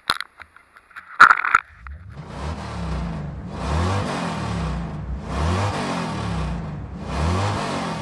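Car engine revving over and over in an even rhythm, one swell about every second and a half, starting about two seconds in. Before it come a few clicks and a loud knock about a second in.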